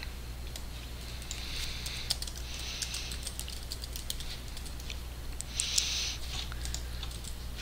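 Irregular keystrokes on a computer keyboard, typing, over a low steady hum.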